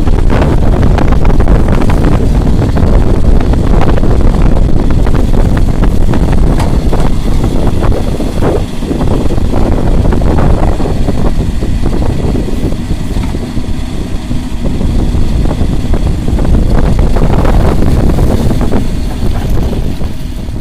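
JCB 3DX backhoe loader's diesel engine running loud and close, with heavy wind buffeting the microphone. The level drops briefly twice.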